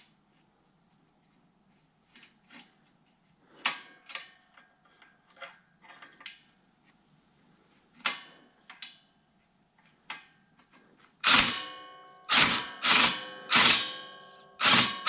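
Hand tools working on metal: scattered light clicks and knocks, then near the end a run of loud, ringing metallic clanks, about two a second, as an Allen bit on a long extension bar is worked on a bracket bolt.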